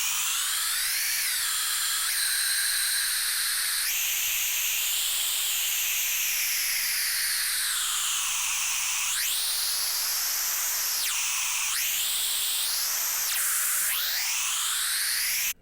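Bright white noise from the Xfer Serum software synthesizer, high-pass filtered and run through a phaser, its phaser depth swept up and down by hand. It is a steady hiss with phaser notches that glide up and down in pitch and now and then jump suddenly.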